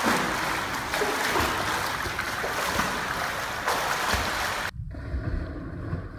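Pool water splashing and churning as a swimmer does dolphin kicks at the surface, his body undulating up and down. About three-quarters of the way through, the sound switches abruptly to muffled underwater rumbling with dull low thumps.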